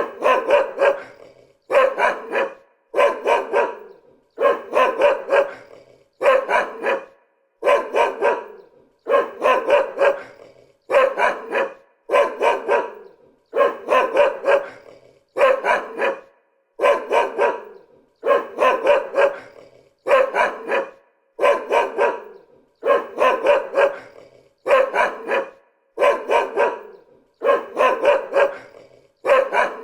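A dog barking in short bursts of two to four barks, the bursts coming evenly about every second and a half with silence between them, the same pattern repeating without change.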